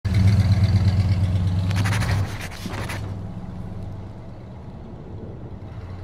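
Motor vehicle engine running loud for about two seconds, then dropping to a quieter steady hum that slowly fades. A short burst of rapid clicks comes around two to three seconds in.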